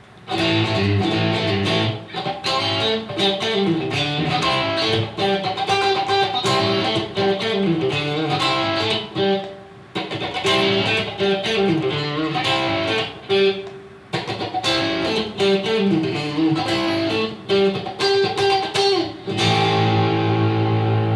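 Fender electric guitar played through a Line 6 POD HD500 crunch patch (Highway 100 amp model, vintage compressor, Screamer overdrive boost, multi-head delay): blues-rock licks and chord phrases. Near the end it settles on a chord left ringing.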